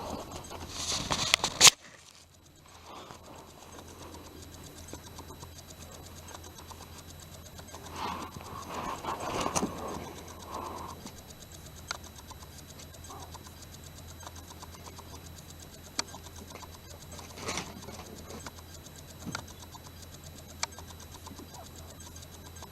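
An animal in a sneezing fit: a sharp, loud sneeze just under two seconds in, then a longer noisy burst of sneezing at about eight to ten seconds and a short one near eighteen seconds, with faint clicks between.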